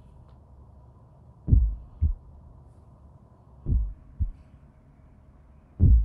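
A slow heartbeat sound effect: deep paired thumps, lub-dub, with the first of each pair louder, repeating about every two seconds over a faint steady hum.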